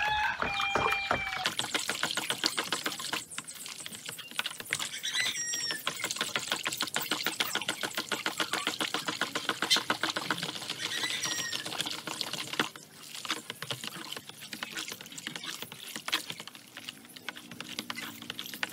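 Rapid clatter of a utensil whisking foamy homemade liquid soap in a plastic basin, striking the bowl many times a second with the suds sloshing. The stirring slackens briefly around 13 seconds in.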